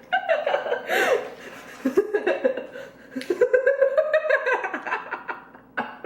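A woman's laughter, in quick repeated bursts with short breaks between them.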